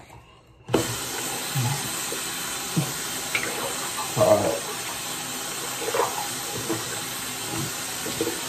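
Bathroom sink tap turned on about a second in, with water running steadily into the basin.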